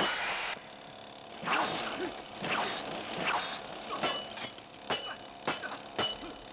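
Movie fight sound effects: a loud steady noise cuts off about half a second in. A run of sharp hits and whooshes follows, coming about every half second later on, several with a short metallic ring.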